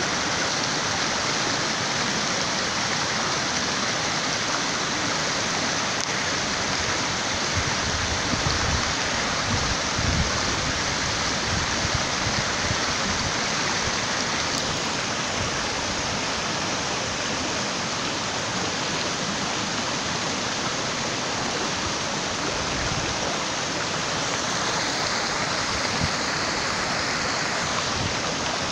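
Water overflowing a concrete dam spillway and pouring down its face: a steady, even rush of falling water.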